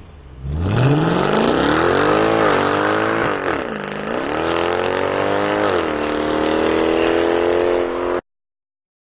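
Mercedes C63 AMG (W204) 6.2-litre V8 with an X-pipe exhaust accelerating hard, its pitch climbing, dropping at two gear changes, then holding steady. The sound cuts off suddenly near the end.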